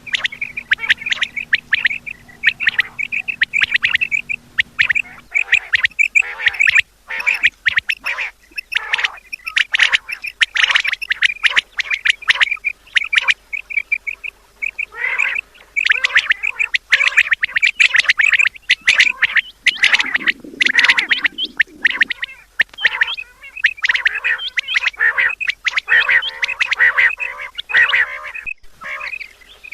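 A flock of quail calling together: a dense, unbroken chatter of rapid, overlapping short calls.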